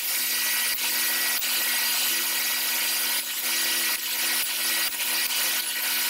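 Table saw running steadily while small wooden blocks are pushed through the blade in a jig to cut notches. A steady hum with a thin high tone, dipping slightly every second or so.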